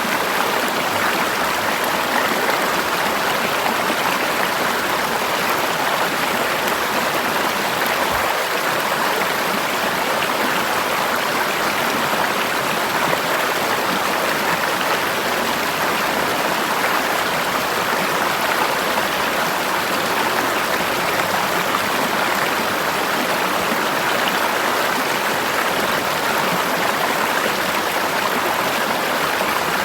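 Forest river flowing steadily over rocks, an even rushing of water with no breaks.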